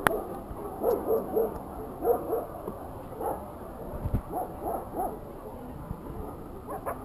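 Caucasian Shepherd Dogs barking in short runs of two or three barks, with pauses between. There is a dull thump about four seconds in.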